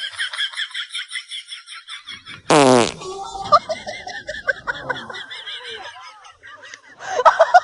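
A fart noise made with a balloon as a prank: one short, loud blast about two and a half seconds in, falling steeply in pitch.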